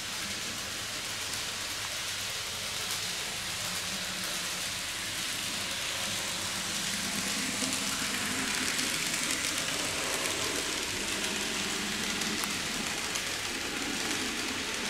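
N-gauge model trains running on a layout: a steady hissing whir of small motors and wheels on the track, with a low hum that grows a little louder about halfway through.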